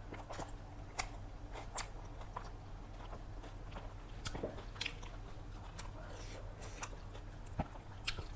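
Close-up mouth sounds of a person eating chicken biryani: chewing and biting, with irregular small wet clicks and smacks.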